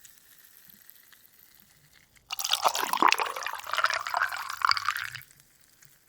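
Water poured into a glass of ice cubes. After two quiet seconds the pour starts suddenly and runs about three seconds before stopping.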